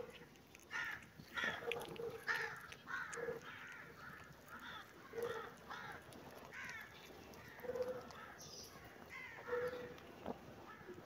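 Crows cawing in a series of short, repeated calls.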